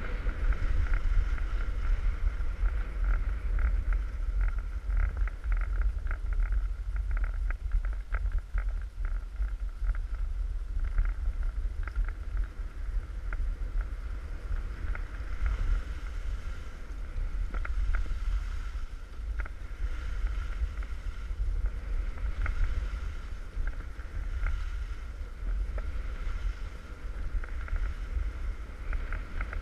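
Wind buffeting a GoPro's microphone as a skier runs down a groomed piste, a steady low rumble, with the hiss and irregular scraping of skis on packed snow.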